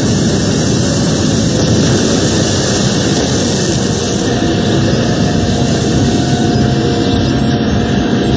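Loud, continuous rumbling roar of an animated destruction sound effect for a cliff crumbling after a sword slash, joined about halfway by a faint steady tone.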